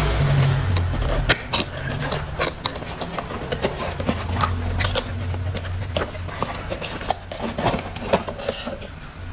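Irregular clicks and light scrapes of plastic toy-train parts being handled and fitted together, over a low hum that fades out about six seconds in.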